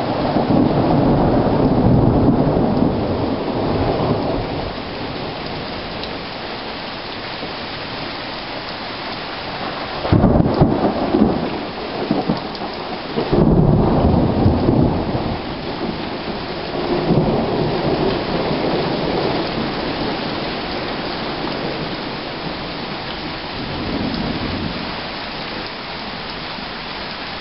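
Steady rain with rolling thunder: a long rumble at the start, several more rumbles in quick succession from about ten to eighteen seconds in, the first of them coming on suddenly, and a fainter roll near the end.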